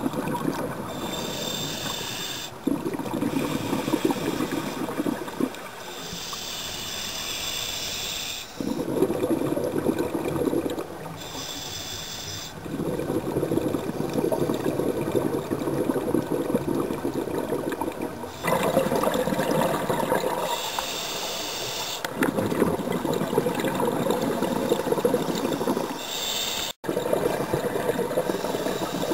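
Scuba diver breathing through a regulator underwater: short hissing inhales through the demand valve alternate with longer bubbling exhales, about five breaths in all. The sound drops out for an instant near the end.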